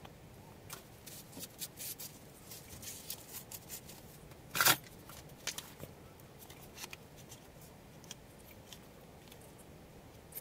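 Small plywood clamp parts and a plastic quick-grip bar clamp being handled: scattered light clicks and rustles, with one sharp, louder click about four and a half seconds in.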